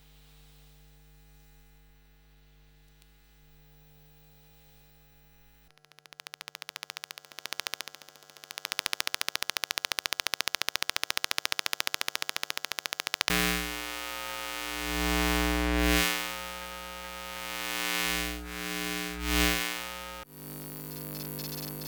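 Electromagnetic hum and buzz from electronic devices, picked up with a piezo microphone: a faint steady hum for the first few seconds, then a rapid pulsing electrical buzz from about six seconds in. From about thirteen seconds a louder noisy hum swells and fades several times, then switches abruptly near the end to another steady buzz.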